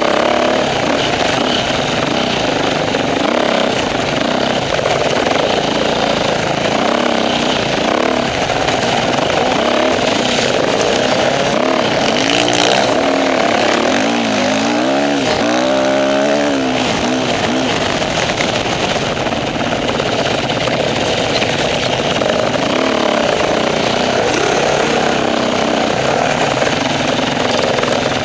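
Off-road motorcycle engine running and revving up and down as the bike rides a dirt trail, with the pitch rising and falling repeatedly about halfway through.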